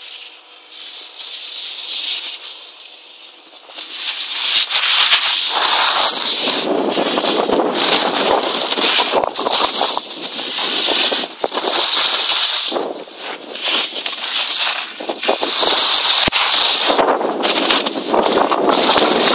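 Snowboard edges carving and scraping over hard-packed piste snow: a rasping, crackly hiss that swells and fades with each turn. It is fainter for the first few seconds, then loud.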